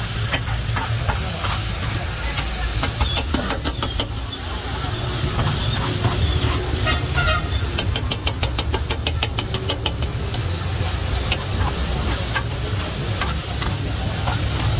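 A metal bench scraper chopping and scraping chicken on a hot flat-top griddle: sharp clacks of the blade on the steel plate, with a fast, even run of chops of about eight a second a little past halfway. Under them the meat sizzles and hisses, over a steady low rumble.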